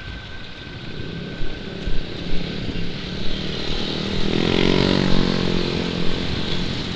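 Motorcycle engines in street traffic, with one engine note swelling loud about four seconds in, over road noise and a few bumps early on.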